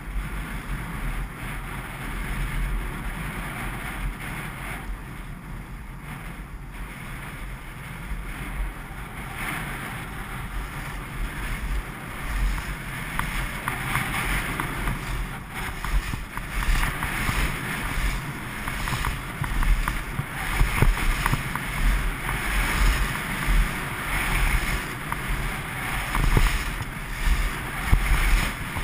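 Wind buffeting the camera microphone over the hiss and scrape of skis sliding on packed snow during a downhill run. It grows louder about a third of the way in and keeps surging as the skier picks up speed.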